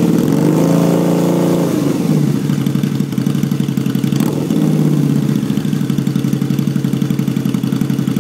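Harley-Davidson V-Rod's liquid-cooled V-twin running through a Mark Daynes custom exhaust, revved while parked: a throttle blip that rises and falls over the first two seconds, a shorter blip about four seconds in, then a steady pulsing idle.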